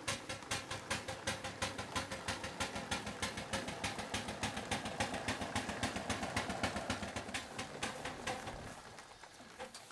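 Live-steam model showman's traction engine moving off in gear, its exhaust beating in a quick, even rhythm of sharp chuffs. The beats come faster through the middle, then fade away near the end.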